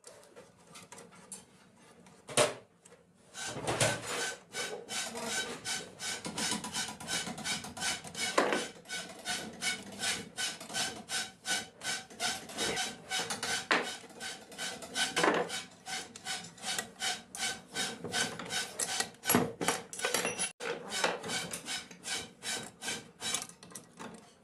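Screwdriver and steel shaft parts clicking and scraping against a sewing machine arm as its main shaft is fitted and set screws are turned. After one sharp click, a quick run of metallic clicks with a faint ring begins about three seconds in.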